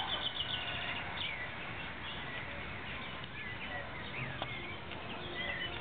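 Small birds chirping in many short, quick calls over a steady background noise.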